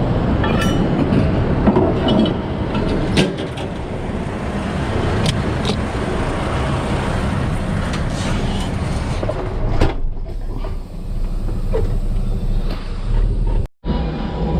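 Logging truck driving: a steady heavy engine and road rumble, with a few short knocks and rattles. The sound cuts out for a moment near the end.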